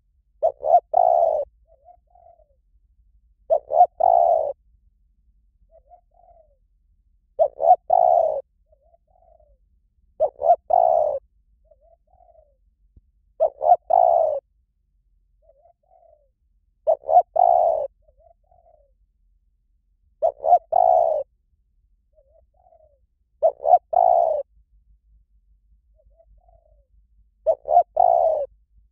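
Spotted dove cooing: a phrase of a couple of short notes and a longer rolling coo, repeated nine times about every three seconds, with faint short coos in between.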